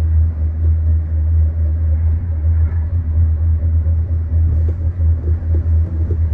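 Steady low rumble of a Disney Skyliner gondola cabin in motion, heard from inside the cabin.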